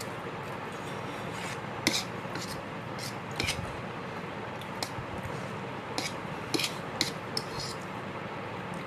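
Eating utensils clinking and scraping against a dish while eating, in scattered short clinks over a steady hiss, the loudest about two seconds in.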